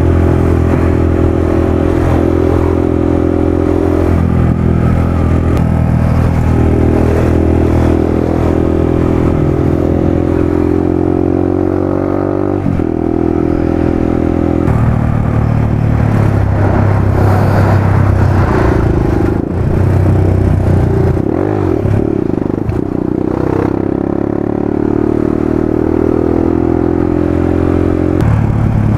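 Motorcycle engine running under the rider while lane splitting between cars, over wind rush. Its pitch holds steady for stretches and shifts in sudden steps a few times, around 4 s, 13 s, 15 s and near the end.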